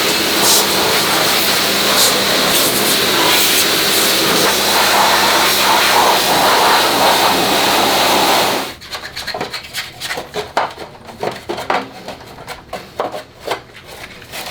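High-pressure washer spraying steadily, cutting off suddenly about nine seconds in. It is followed by irregular rubbing strokes, as of scrubbing the washed air-conditioner parts.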